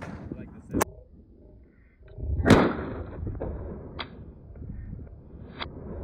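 Rifle shots. A small crack comes just under a second in, then a loud shot about two and a half seconds in with a long rolling echo. Two sharper, quieter cracks follow near four and five and a half seconds.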